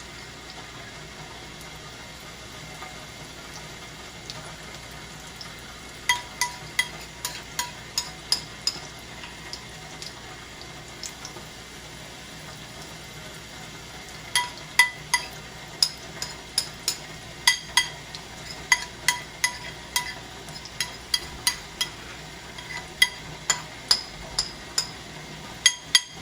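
Sardine patties frying in hot oil with a steady sizzle. A metal utensil taps against the pan in two runs of sharp, ringing strikes about two a second, the first a few seconds in and the longer one through the second half.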